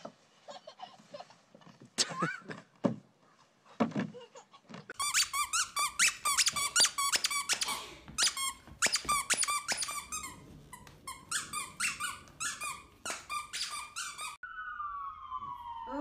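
A dog chewing a yellow spiky rubber squeaky toy, squeaking it over and over in quick runs of several squeaks a second. The squeaking starts about five seconds in and stops sharply near the end, where long sliding tones take over.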